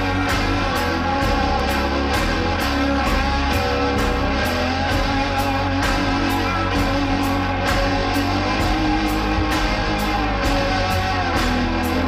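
Rock music with guitar over a steady beat.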